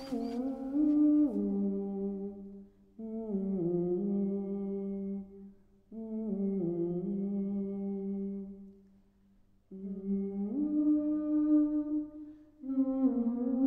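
A voice humming a slow melody without words, in phrases a few seconds long with short pauses between, each phrase stepping down in pitch.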